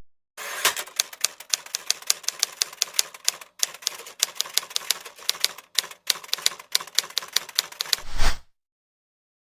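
Typewriter keys clacking in an irregular typing rhythm of about four to five strokes a second, ending in a heavier clunk about eight seconds in.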